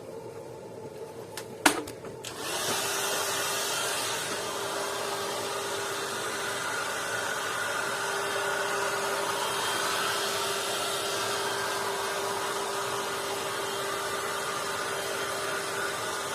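A sharp click, then about two and a half seconds in a heat gun starts up and runs steadily, a fan rush with a steady hum. It is blowing hot air to warm the freshly fitted windscreen's sealant in the cold.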